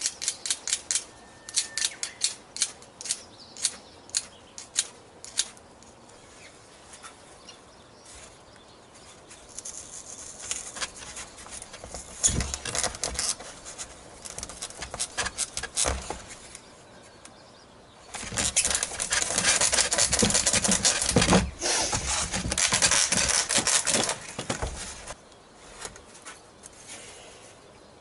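A bamboo skewer being snipped with a small cutter, sharp clicks about two a second for the first few seconds. Later come longer rubbing and scraping sounds, loudest in a long stretch near the end, as bamboo skewers are pushed into a styrofoam model airplane wing.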